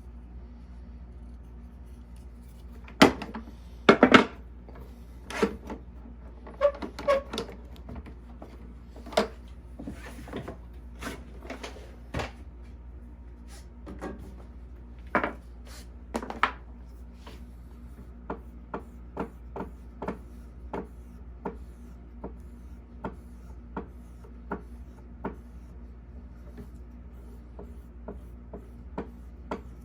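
Hook knife being honed on sharpening sticks: short rubbing strokes of steel on the abrasive, loud and uneven at first, then settling into a lighter, steady rhythm of roughly three strokes every two seconds.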